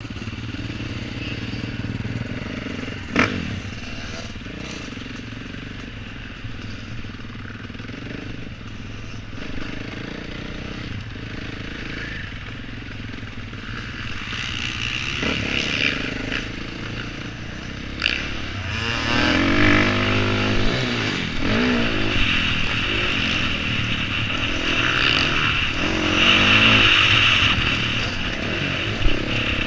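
Motocross dirt bike engine heard from on board: running at low speed and light throttle at first, then revving harder and accelerating in the second half. Short knocks stand out about three seconds in and again around eighteen seconds.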